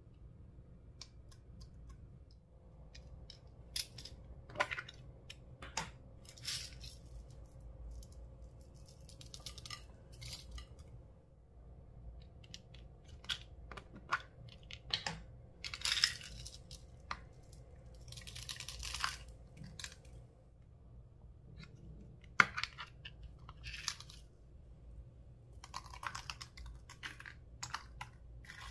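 Slime being squished and stretched by hand, giving irregular sticky crackles and pops, with a sharp click about two-thirds of the way through.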